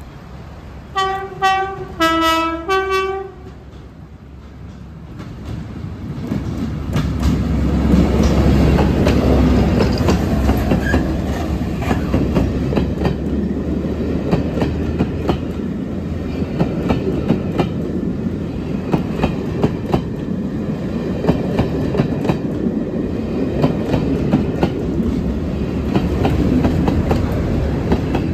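Diesel-hauled passenger train approaching and passing close by. A locomotive sounds a two-tone horn in several short alternating blasts about a second in. The engine and wheels then build to a loud pass, followed by the coaches' wheels clicking steadily over the rail joints and the rear locomotive passing near the end.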